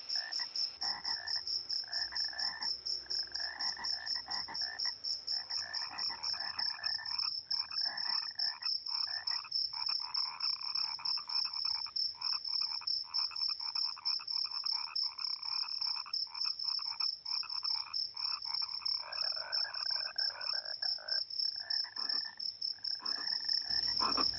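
A chorus of frogs croaking in rapid pulses, over a steady high-pitched trill.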